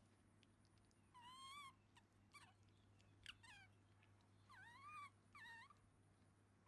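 Baby macaque giving high, wavering squeaky calls, about five of them: some brief, some held for about half a second.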